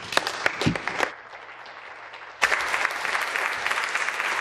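Legislators applauding at the end of a speech: a few scattered claps and a low thump, then, about two and a half seconds in, steady massed applause starts suddenly.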